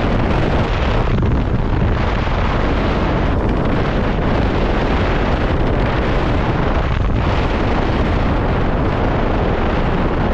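Loud, steady wind buffeting on the microphone of a motorcycle at speed, mostly deep noise with no clear engine note.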